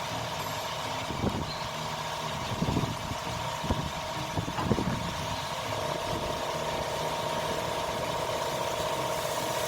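A steady mechanical hum like an idling engine, with a few short knocks and clinks in the first half.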